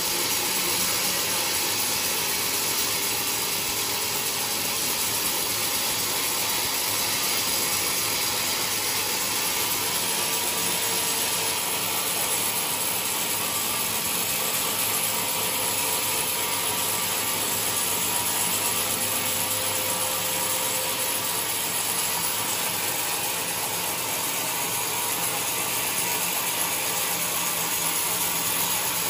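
Large sawmill cutting a coconut log: a steady, even machine noise that holds without a break.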